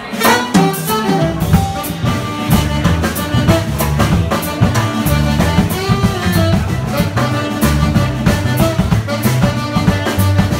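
Live jazz-funk band of saxophone, electric violin, upright double bass, keyboard and drum kit playing. The drum kit kicks in right at the start and the bass line joins about a second later, settling into a steady groove.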